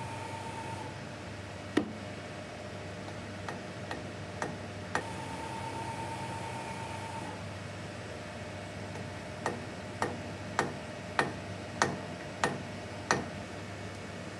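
Sharp mechanical clicks over a low steady hum, with a steady high beep twice. There is one loud click about two seconds in and a few faint ones after it. Near the end comes an even run of seven clicks, a little over half a second apart.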